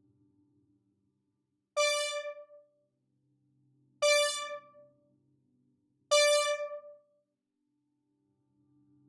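A single bright synthesizer note played three times, about two seconds apart, each fading out within a second, over a faint low hum.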